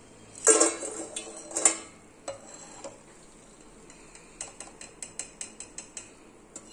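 Perforated steel skimmer knocking against the frying pan and a steel bowl as fried ribbon pakoda strips are lifted out of the oil: two loud metallic clanks in the first two seconds, then a run of light taps and clinks near the end.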